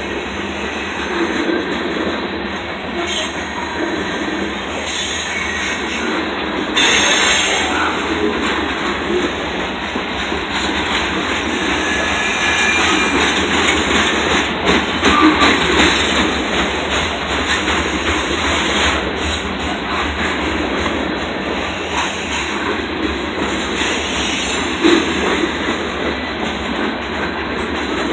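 Freight train's covered hopper cars rolling past: a steady rumble of steel wheels on rail, clacking over the rail joints, with a few short wheel squeals about halfway through.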